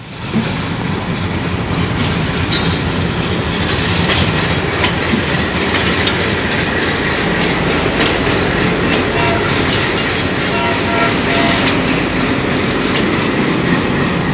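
WDM-3A diesel-electric locomotive, with its ALCO 16-cylinder engine, running loudly as it passes close by, with sharp clicks from its wheels on the track.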